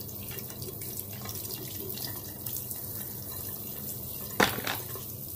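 Tap water running into a sink while a face-mask spatula is rinsed under it, with one sharp knock about four seconds in.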